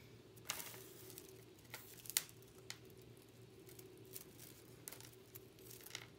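Stone beads and a metal chain clicking and clinking lightly as a beaded necklace is handled: a scattering of faint, irregular clicks, the sharpest about two seconds in, over a low steady hum.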